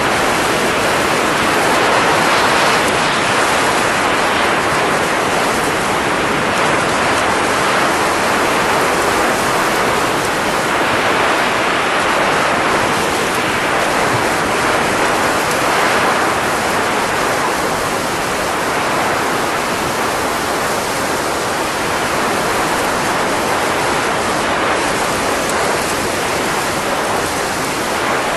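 A steady, loud rushing hiss of blown air that swells and eases slightly every few seconds.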